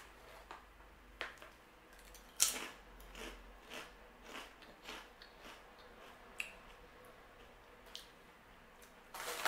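A person biting into and chewing a baked, non-fried pizza-flavour crisp (Fiorentini Snick Snack), making crisp crunches. The sharpest crunch comes about two and a half seconds in, followed by a run of softer chewing crunches and a few scattered ones near the end.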